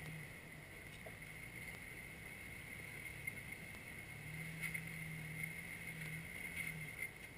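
Engine of a Jeep Wrangler crawling slowly over boulders, a low steady drone that swells under more throttle about four seconds in and eases off near the end. A faint steady high whine runs under it, with a few light knocks.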